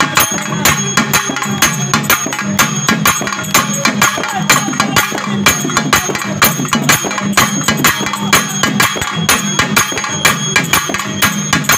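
Live music with fast, steady percussion: jingling metal percussion and drum strikes keep an even beat, with high ringing from the metal throughout.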